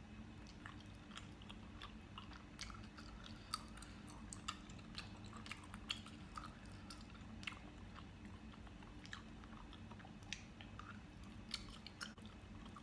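Close-up eating sounds: wet chewing and lip smacks of cheesy spicy noodles, with many scattered sharp clicks from the mouth.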